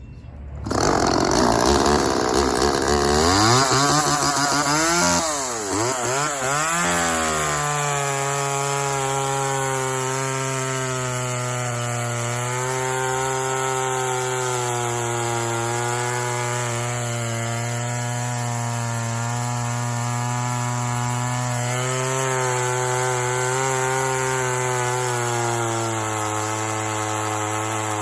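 Homelite two-stroke chainsaw running, starting abruptly about a second in. Its engine speed rises and falls for the first several seconds, then settles to a steady, even running note for the rest.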